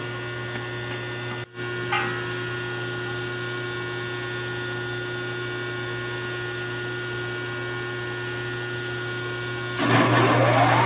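A steady electrical hum with several fixed tones, broken briefly about a second and a half in. Near the end the Sunlike RD-750 radial drill press's motor starts and runs loudly, its pitch rising as it spins up, showing the machine now has power.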